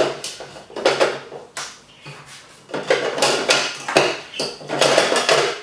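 Hard plastic parts of a Bosch Tassimo coffee pod machine being handled and fitted by hand: a run of clicks, knocks and clatters.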